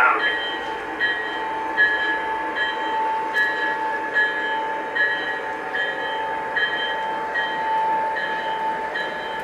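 Lionel model train running on the layout, pulling tank cars: a steady motor whine with a regular click about every 0.8 s.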